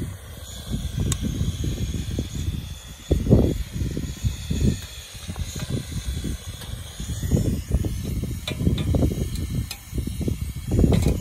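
Wind gusting and buffeting against the microphone in uneven low rushes, over a steady hiss from a portable gas-cylinder burner heating a steaming pot. A few light metal clicks come from a spatula on the pot and plate.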